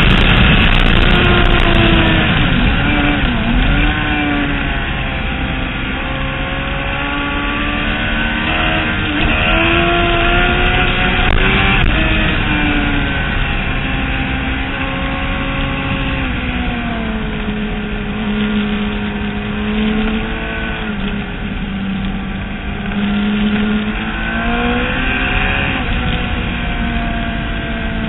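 Racing motorcycle engine heard onboard at track speed. Its pitch climbs and drops repeatedly through gear changes and corners over a steady rush of wind.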